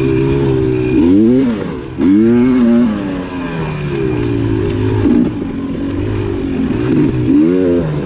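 Off-road dirt bike engine racing, revving up and down as the throttle is worked, its pitch climbing and dropping every second or two with quick swings near the end.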